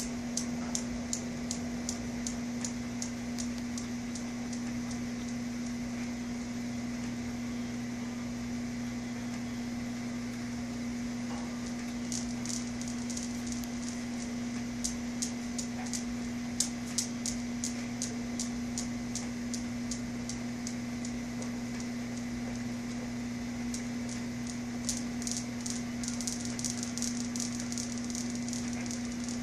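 Steel balls of a Newton's cradle clacking in even runs of sharp clicks, about three a second, as a cat bats them; the clicking dies away and starts again a few times. A steady low hum runs underneath.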